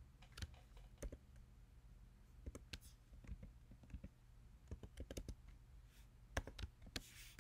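Faint typing on a computer keyboard: scattered keystroke clicks in small irregular clusters, over a low steady hum.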